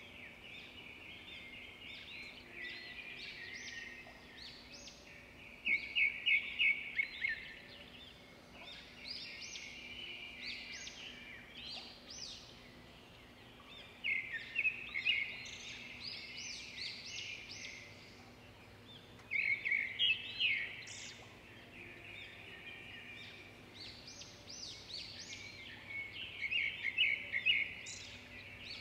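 Birds calling in repeated bursts of rapid, high chattering notes every few seconds, over a faint steady low hum.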